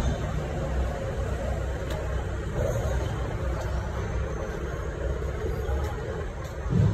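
Steady low rumble of a vehicle engine running at idle, with a short louder bump near the end.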